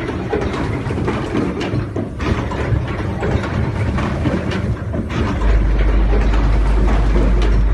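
Automatic plug-insert crimping machine running, a steady mechanical clatter with faint irregular clicks. About two-thirds of the way through, a loud low rumble comes in and stays.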